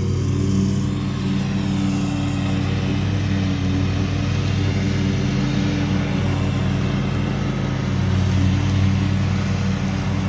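Lawnmower engine running steadily at a constant speed.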